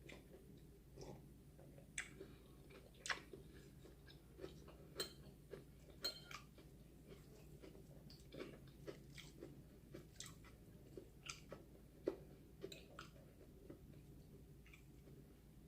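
A person chewing food, faint, with many soft irregular clicks and mouth smacks.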